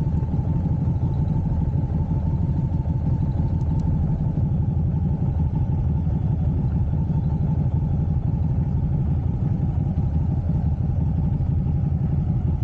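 Cruiser motorcycle engine running steadily at low revs while the bike is ridden slowly, heard close up from a camera mounted on the bike: an even, fast pulsing with no revving.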